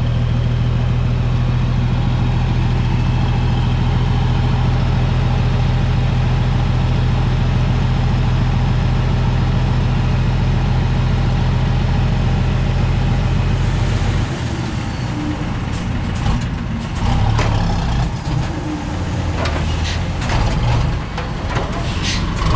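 Diesel truck engine running steadily with a deep, even drone. About fourteen seconds in the drone cuts off, and what follows is uneven lower rumble with scattered short clicks and knocks.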